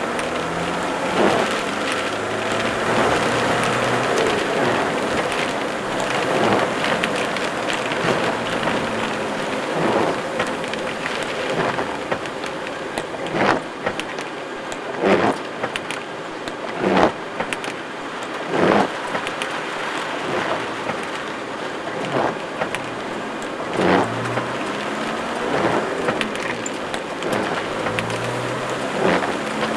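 Rain falling steadily, with a regular swish every one and a half to two seconds.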